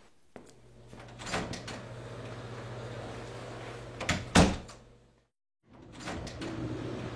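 A few knocks and then a loud thud about four seconds in, over a steady low hum. The sound drops out completely for half a second near the end, then resumes.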